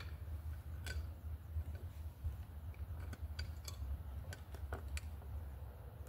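Scattered small clicks and taps, about eight of them, from hands working wires and metal parts at a flood light's wall-mounted junction box. They sit over a steady low rumble.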